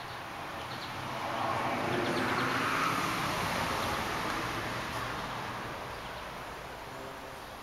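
A car passing by: its noise swells up about a second in, peaks, and fades away over several seconds.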